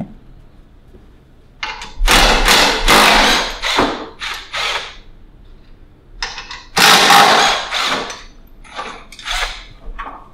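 Power tool, likely a cordless impact wrench, hammering in several bursts of one to two seconds as the bolts holding a rotary lawn mower's blade disc are undone.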